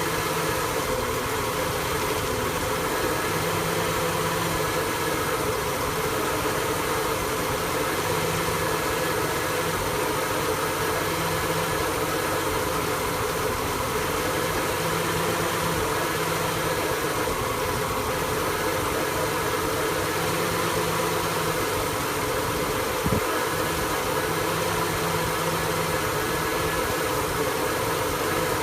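1974 Ford F100's engine, converted to electronic fuel injection, idling roughly, with a low hum that comes and goes every couple of seconds. A single sharp click sounds late on.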